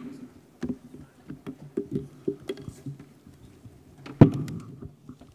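Handling noise picked up by the lectern microphones while a laptop is set up on the lectern: a string of short knocks and bumps, with one louder thump about four seconds in.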